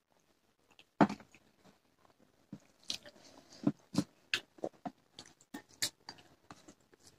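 People chewing mouthfuls of rice and curry, with irregular wet mouth smacks and clicks; the loudest smack comes about a second in.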